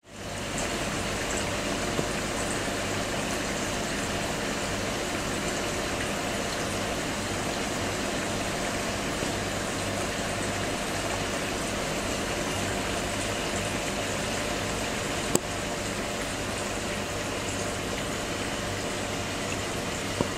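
Air-driven aquarium sponge filters bubbling steadily in the tank, with a steady low hum underneath. A single sharp click about fifteen seconds in.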